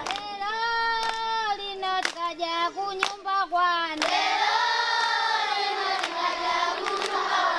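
Children's voices singing together in long held notes, with sharp hand claps about once a second keeping time.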